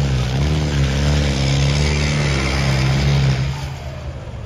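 Diesel tractor engine running hard and loud in a tractor pulling contest, a steady low drone that wavers a little in pitch, over a haze of crowd noise. It drops away sharply about three and a half seconds in.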